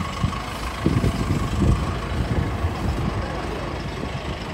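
Diesel farm engine idling with a steady low rumble, swelling a little louder about a second in.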